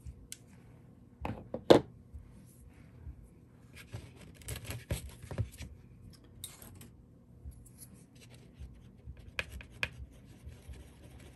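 Small scraping and tapping of a stir stick mixing two-part epoxy on a paper plate, with a sharp knock of something set down on the table about two seconds in.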